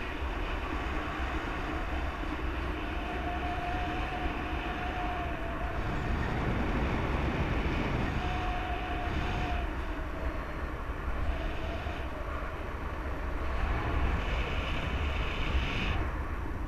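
Steady wind rushing over the camera microphone of a paraglider in flight, low and rumbling. A faint held tone comes and goes a few times under it.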